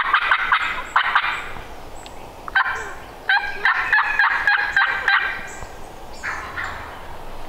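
Wild turkey gobblers gobbling in rapid rattling bursts: one gobble at the start, a longer run of gobbling about three seconds in, and a fainter gobble near the end.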